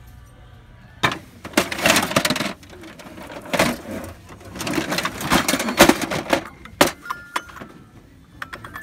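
Clattering and rattling of hard objects being handled, in several loud irregular bursts, ending with a few sharp clicks.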